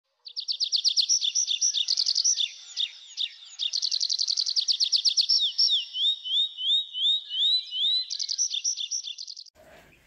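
A songbird singing a fast, varied song of rapid trills and short rising whistled slurs, with a brief pause about three seconds in. The song cuts off suddenly just before the end.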